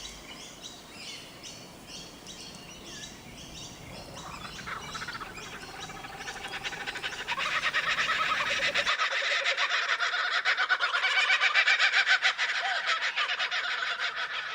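Wild birds calling: repeated short high chirps, then a dense chorus of harsh, rapid chattering calls that builds up and is loudest near the end.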